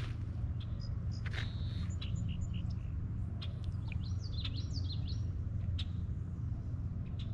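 Wild birds chirping and calling, with short chirps and quick rising and falling trills clustered around the middle, over a steady low rumble.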